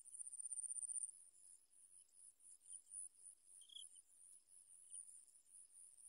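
Faint, steady high-pitched insect trilling, a fast pulsing buzz that is loudest in the first second.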